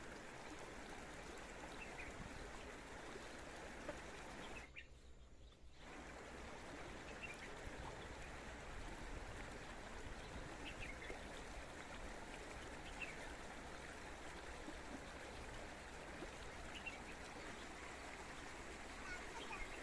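Spring water flowing steadily, with faint short bird chirps now and then. The sound dips briefly a little before five seconds in.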